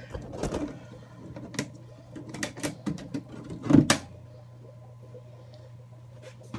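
Scattered clicks and knocks of things being handled, like a lid or door being moved, with one louder knock about four seconds in, over a steady low hum.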